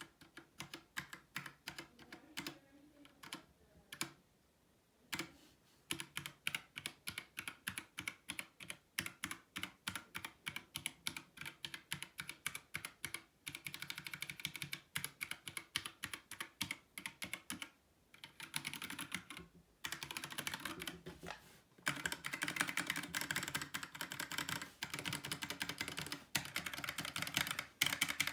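Mecharite Apex True RGB 60% mechanical keyboard with Kailh linear switches being typed on. Steady key clicks give way after a short pause to faster, denser typing in the second half.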